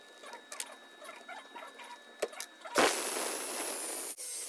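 A few light clicks as a drill chuck is tightened, then about two-thirds of the way in an electric drill, mounted chuck-down as a makeshift drill press, starts abruptly and runs steadily with a high whine as its bit bores into a block of wood.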